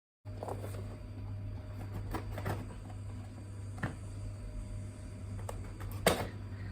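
Hands struggling to open a smartphone box's packaging: scattered rustles and clicks, with a louder crackle about six seconds in, over a steady low hum.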